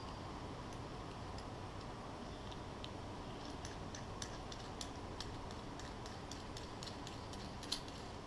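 Light, irregular metal clicks and ticks as the threaded reel-seat collars are screwed and tightened onto a Muzzy XD bowfishing reel, with one slightly louder click near the end. A faint steady hiss lies under them.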